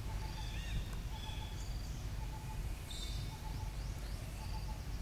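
Outdoor woodland ambience: scattered short bird chirps and calls over a steady low rumble.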